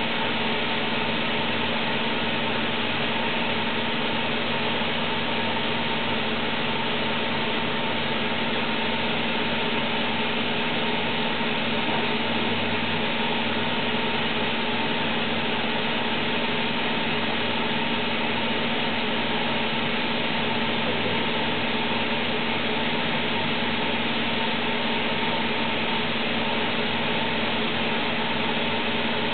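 Toshiba Machine ULC100S ultra-precision NC lathe running under power: a steady machine hum with a fixed low tone and a fainter higher tone, unchanging throughout.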